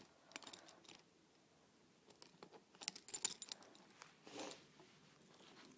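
Faint scattered clicks and light knocks of a door closer and its newly fitted arm being handled, bunched together about two to three and a half seconds in, with a brief soft rustle a little after four seconds.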